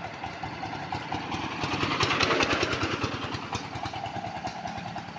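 A diesel motor van (vatvati) passing by, its engine chugging with rapid, even knocks that grow louder to a peak about two seconds in and then fade.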